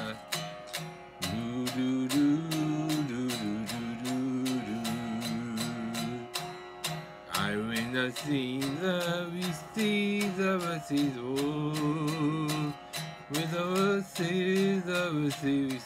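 A man singing while strumming an electric guitar in a steady rhythm, holding some notes with a wavering vibrato.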